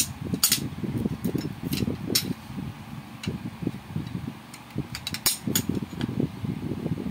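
Steel tire levers clinking and tapping as they are handled and laid on a tile floor: a few sharp metallic knocks in the first couple of seconds and again about five seconds in, over a low, irregular rumble.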